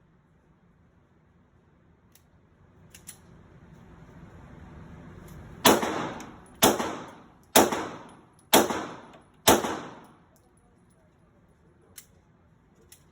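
Five gunshots fired at a steady pace about a second apart, each followed by a ringing tail. A few faint clicks come before and after them.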